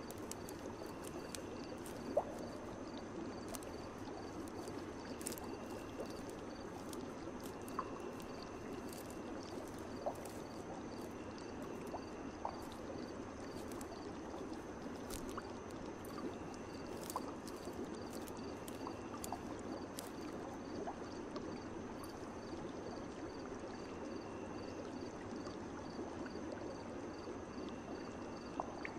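Steady flowing, trickling water with occasional small drips or plinks, over faint high chirps that repeat evenly.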